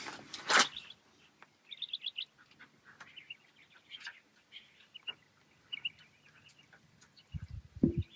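Birds chirping in short scattered bursts. A sharp click comes about half a second in, and a brief low rumble near the end.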